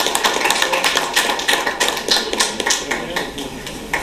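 Group of people applauding, a dense patter of hand claps that thins out near the end.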